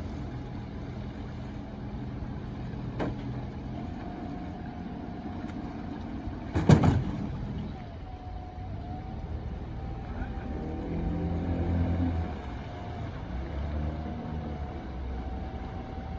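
Marine engine of a small pushboat moving a barge, running steadily with a low hum and a held whine. There is a sudden loud knock a little before halfway, and the engine sound swells and wavers for a couple of seconds past the middle.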